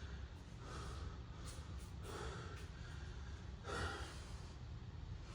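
A man breathing hard during air squats, three audible breaths about a second and a half apart over a low steady hum.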